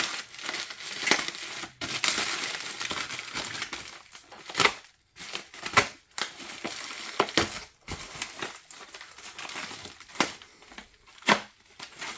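A parcel being opened by hand: packaging crinkling and crunching, broken by several sharp cracks and knocks.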